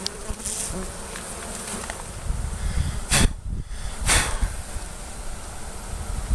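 Honeybees buzzing around their opened colony, over a low rumble, with two brief noisy bursts about three and four seconds in.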